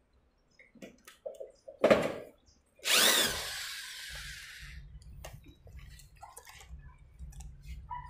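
Cordless drill run in one short burst about three seconds in, its motor spinning up with a rising whine, driving a screw to fix a door-closer body to an aluminium door frame. A couple of short knocks come before it.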